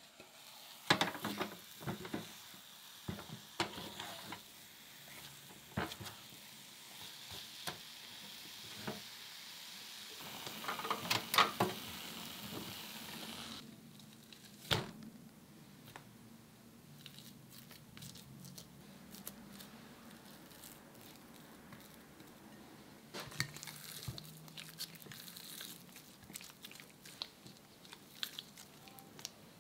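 Sweet potato paste sizzling in an enamel pot as a silicone spatula scrapes and stirs it to dry it out over low heat, with sharper scraping strokes around 11 seconds in; the sizzle cuts off suddenly after about 13 seconds. A single knock follows, and later soft, sticky squishing as the paste is pulled apart by gloved hands in a glass bowl.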